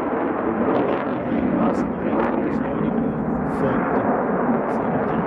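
Steady, loud jet noise of a Swiss Air Force F/A-18 Hornet flying past.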